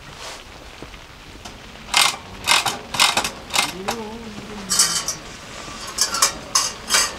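A series of sharp metallic clicks and rattles from a wick-type kerosene heater as its side knob and burner are worked by hand, about a dozen in quick, uneven succession. A short hum, like a brief voice, sounds about 4 s in.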